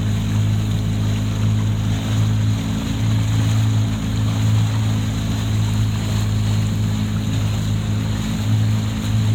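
A boat's engine running steadily, a constant low hum, with a steady rush of water and wind over it.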